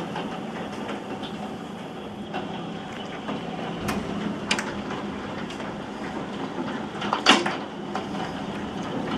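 Steady rain noise from a heavy thunderstorm downpour, with a few short sharp knocks, the loudest about seven seconds in.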